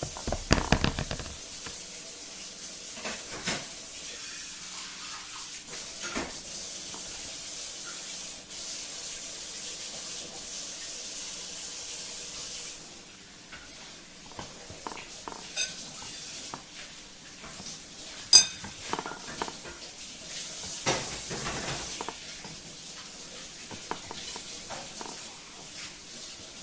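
Hands rolling grape leaves over a ceramic plate: soft leaf rustling with scattered light taps and clicks on the plate, and one sharper click about two-thirds of the way through. A steady background hiss stops about halfway.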